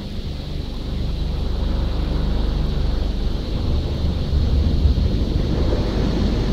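Kleindienst Euro Combi automatic car wash running over the car, heard from inside the cabin: a steady low rumble with water spraying on the body and windows, louder about four seconds in.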